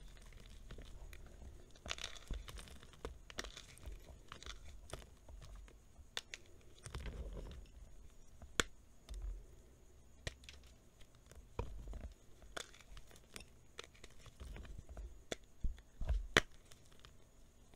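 Dry reformed gym chalk blocks being snapped and crumbled by hand: scattered sharp cracks and gritty crunching, with the loudest snap near the end.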